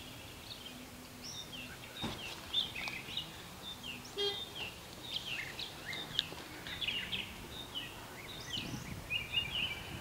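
Songbirds chirping and singing, a steady run of short whistled notes with a brief rapid trill near the middle.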